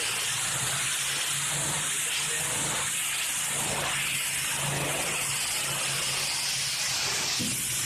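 Pressure washer spraying water onto concrete: a steady hiss of the high-pressure jet, with the machine's engine running as a low hum underneath.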